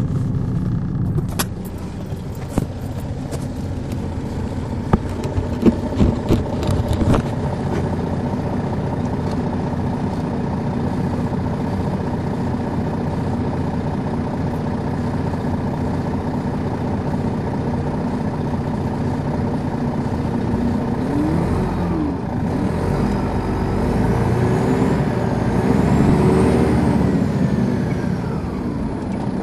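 The Detroit Diesel Series 60 diesel engine of a 2001 MCI D4000 coach, running steadily and heard from the rear seats above the engine, with a few sharp clicks and rattles in the first several seconds. About two-thirds of the way through it pulls harder, and a whine rises and falls while the drone grows louder.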